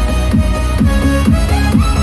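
Electronic dance music with heavy bass, a steady beat and a sliding lead melody, played back through a Sony DAV-DZ350 5.1-channel home theater system as a sound-quality test.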